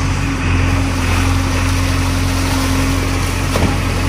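JCB 3DX backhoe loader's four-cylinder diesel engine running steadily while its arm works the bucket in the river, with a brief sharp knock about three and a half seconds in.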